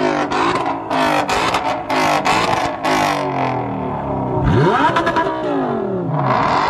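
A Ford Mustang and an Audi R8 revving against each other in repeated quick blips, the engine pitch shooting up and dropping back. About two-thirds of the way through comes a longer rev that climbs and then falls away.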